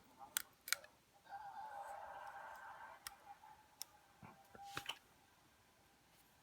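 Light clicks and taps from handling the opened hair dryer's plastic parts, with a soft rasping rustle lasting about two seconds from about a second in.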